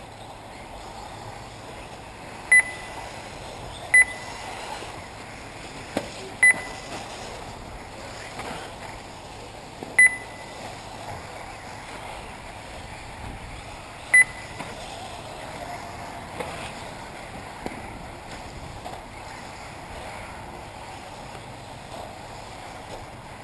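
Five short, high electronic beeps from the race's lap-timing system, spaced unevenly a few seconds apart, each marking a car crossing the timing line. They sound over a steady background hiss.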